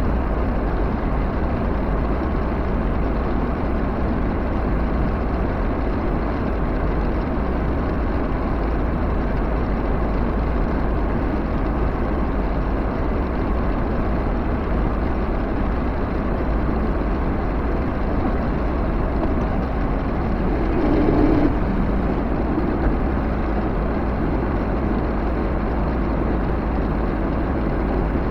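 Vehicle engine running steadily while under way, a constant low rumble, with a brief louder sound about two-thirds of the way through.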